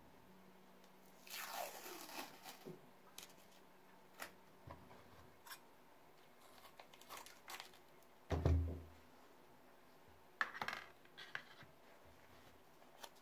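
Masking tape pulled off its roll with a tearing rasp about a second in, then scissors cutting the strip and scattered small handling clicks. A loud dull thump comes about eight seconds in, and another short rasp a couple of seconds later.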